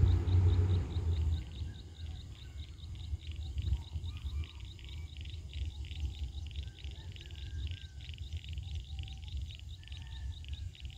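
A low engine rumble fades out over the first second or two. It leaves a rapid, even high chirping pulse, about three a second, with scattered short bird chirps over a faint low rumble.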